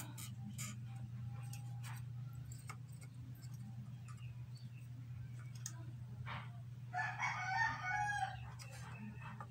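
A rooster crows once about seven seconds in, a wavering call lasting about a second and a half. Under it run a steady low hum and faint scattered clicks.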